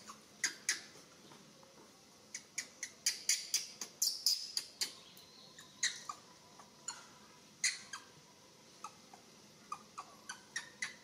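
Young macaque giving short, high-pitched squeaks in irregular bursts as it is rubbed, with a longer squeal about four seconds in.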